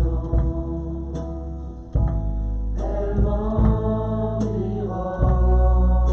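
Music: sustained pitched parts, perhaps voices, over a deep bass, with a soft beat about every 0.8 seconds.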